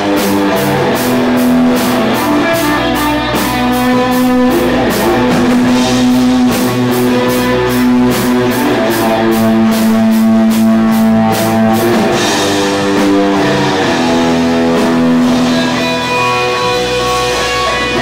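Live rock band playing: electric guitars with long held, sustained notes over bass guitar and a drum kit keeping a steady cymbal beat that thins out about two-thirds of the way through.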